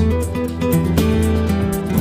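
Background music with strummed guitar and a steady beat.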